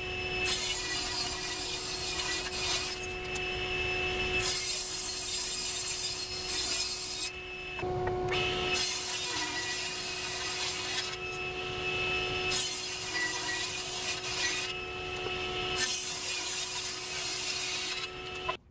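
Jet 10-inch table saw ripping 2x4 lumber lengthwise into narrow square strips: a series of cuts one after another over a steady running hum, with short lulls between passes. The sound stops suddenly near the end.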